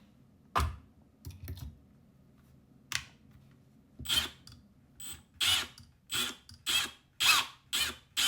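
A small screw being driven by hand into the metal drawer slide of a pull-out shelf. A few knocks come first, then from about four seconds in a steady run of short grinding twists, about two a second.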